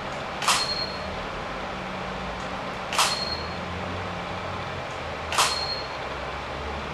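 Three camera shutter releases of a Canon 5D Mark III, about two and a half seconds apart, as the studio strobe fires. Each is followed by a short high beep from the Paul C. Buff Link flash, signalling that it has recycled and is ready. A steady low hum runs underneath.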